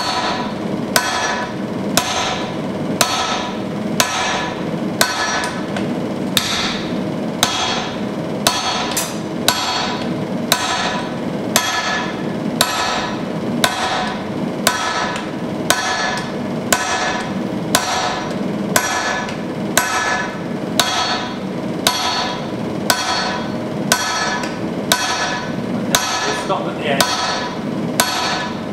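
Two-handed sledgehammer striking red-hot axe steel on an anvil in a steady rhythm, about one heavy blow a second, each blow with a short metallic ring. This is hand forging with a striker, drawing out the steel for a carving axe head.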